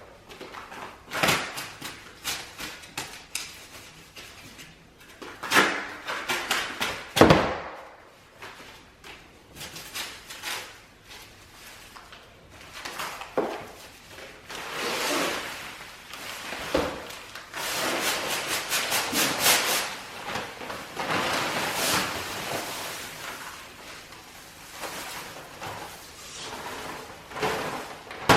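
Knocks and thumps of a bag of dry mortar mix and a mixing container being handled, then several stretches of rushing, scraping noise, each a second or two long, as the dry mix is poured and scraped out.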